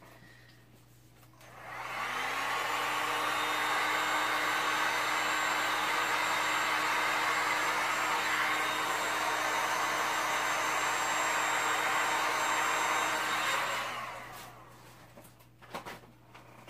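Handheld electric heat gun switched on about a second and a half in, its fan rising in pitch and settling into a steady blowing whir for about twelve seconds, then switched off and running down. It is warming wet epoxy resin on a table top.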